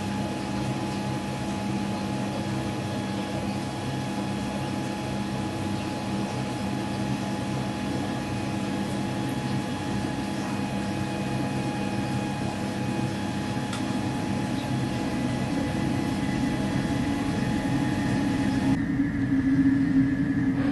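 Steady hum with a hiss under it, holding a few steady tones, getting a little louder over the last few seconds.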